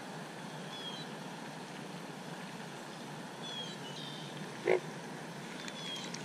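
Steady breeze on the microphone, with a few faint, short, high chirps and one brief louder animal call about three-quarters of the way through.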